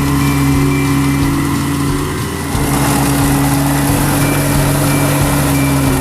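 Rice combine harvester's engine running steadily with a strong low hum. A little after two seconds in, the level dips briefly and then a louder, higher rushing noise joins the hum.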